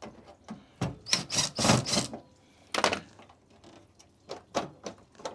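Irregular clicks and knocks of a screwdriver undoing a small screw on a tumble dryer's plastic panel, with the panel being handled.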